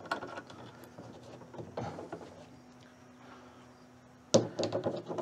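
Light clicks and rattles of the window glass and regulator parts being handled and lined up inside a VW Beetle door, with a louder burst of sound in the last second.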